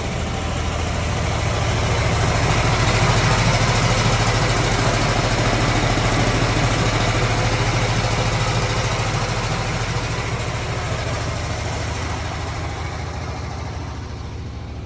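Compressed air at about 125 psi rushing through a dryer vent duct from a reverse skipper air-line nozzle, blowing the lint and debris out of the exterior vent. It is a loud, steady hiss over a low drone that starts suddenly, swells over the first few seconds and eases slightly toward the end.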